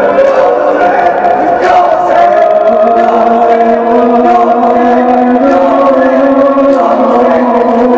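Male voices chanting a mournful Muharram lament (noha) in long held notes.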